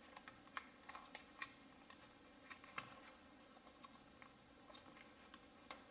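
Faint, irregular small clicks and ticks of hands working a replacement earpad onto a plastic headphone earcup, pressing its edge into the seam, the sharpest click a little under three seconds in.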